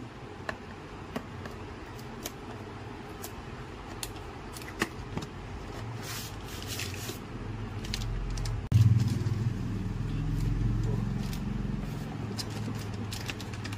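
Cardboard packaging being handled and pulled apart: scattered clicks and scrapes, with a short papery rustle about six seconds in. From about nine seconds a steady low rumble is the loudest sound.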